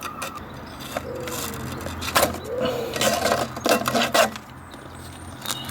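Knife cutting round the edge of a hook-and-loop sanding pad, a few rasping strokes, with birds calling in the background.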